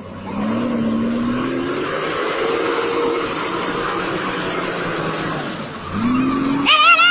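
Tanker semi-truck's diesel engine revving hard under load while stuck in deep mud, its pitch rising over the first two seconds and then held, easing off and revving again about six seconds in. A short, high, wavering tone cuts in near the end.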